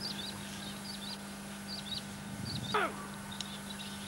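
Birds chirping in short high notes repeated about twice a second, with one louder call sliding steeply down in pitch about three-quarters of the way in, over a steady low electrical hum.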